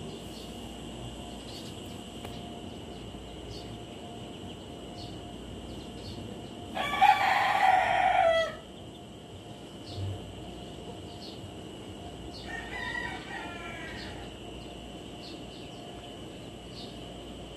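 A rooster crows loudly once, about seven seconds in, the call falling away at its end; a second, fainter rooster crow follows about five seconds later.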